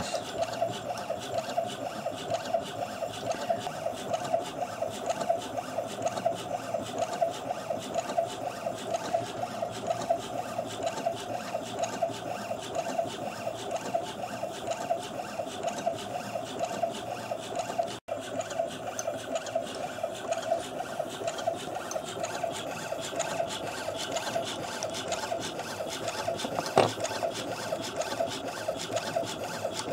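Coil-winding machine running steadily as it winds copper wire onto the low-speed source coil of a Honda CB250N ignition stator: a constant whirring hum with a fast, fine pulse. It drops out for an instant about 18 seconds in, and there is a single click near the end.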